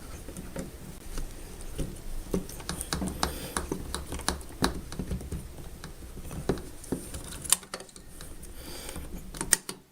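Hands working the dishwasher's water fill valve and pulling its hose off: irregular clicks, taps and scraping, with a sharp click about seven and a half seconds in and another just before the end.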